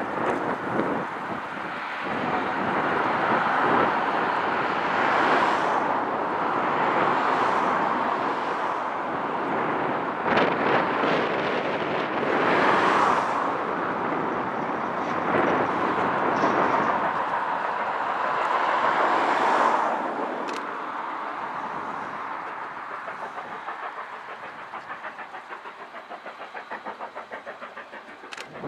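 LMS Stanier Black 5 two-cylinder 4-6-0 steam locomotive working hard up a steep gradient, heard at a distance. Its exhaust blends into a steady roar that swells and eases, then fades gradually over the last third.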